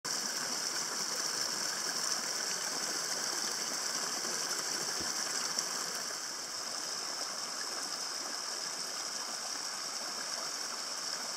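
Small moorland stream running down a grassy slope and splashing over stones: a steady sound of running water.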